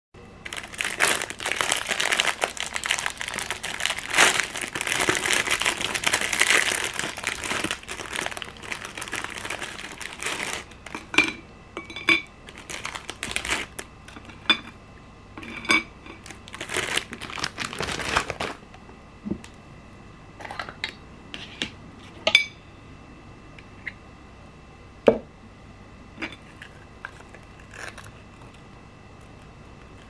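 Plastic bread wrapper crinkling and rustling for about ten seconds as packaged toasted bread slices are handled, then shorter crinkles and taps. In the second half come a few separate clinks of a metal spoon against a glass jam jar and the plate.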